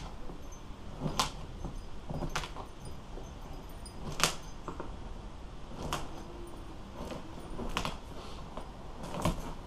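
Staple puller prying upholstery staples out of a boat seat's wooden base, each staple coming free with a sharp click, about six in a row, one every second or two, with scraping and handling between.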